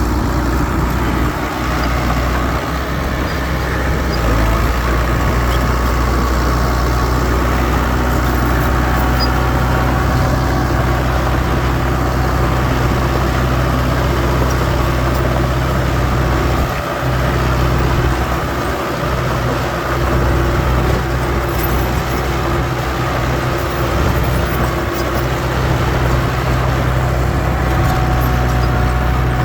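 Heavy diesel engine of earthmoving machinery running steadily, with a couple of brief dips in level past the middle.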